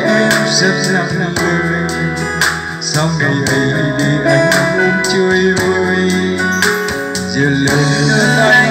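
Music with a steady beat playing through a JBZ 106 portable trolley speaker.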